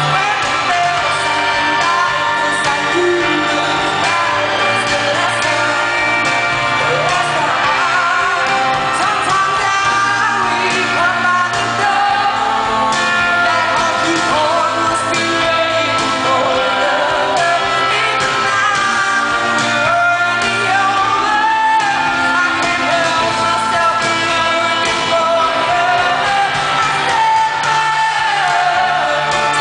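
A female pop singer belting a ballad live with her band, with drums and guitar, in a large concert hall.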